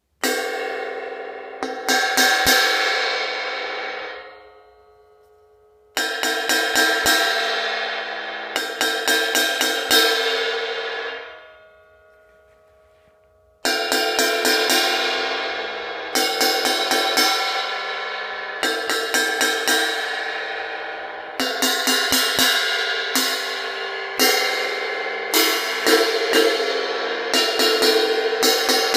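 A heavily unbalanced crash cymbal struck again and again, its bright wash ringing out. Two groups of hits are each left to ring and die away. From about halfway through, steady repeated crashes follow with no pause.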